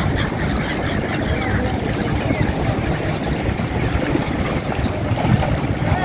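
Steady rushing of wind and choppy sea, mixed with the wingbeats and splashing of a large flock of seabirds flying low over the water, with a few faint calls.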